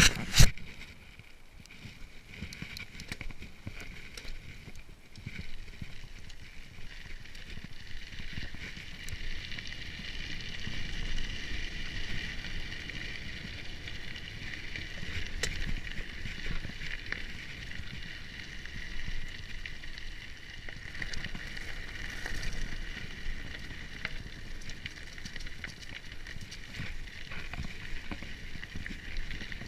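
Mountain bike (Bulls Copperhead 3) rolling along a forest road and dirt track: steady tyre and trail rumble with wind, under a steady high whir from the bike, and a single sharp knock right at the start.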